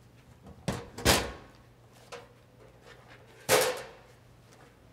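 Sheet-metal breaker panel cover knocking and clattering as it is taken off the panel: two quick knocks about a second in, a light click, then a louder clatter past the three-second mark.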